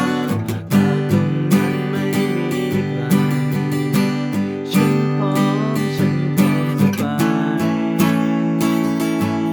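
Acoustic guitar strumming chords in a steady rhythm, with a change of chord about seven seconds in.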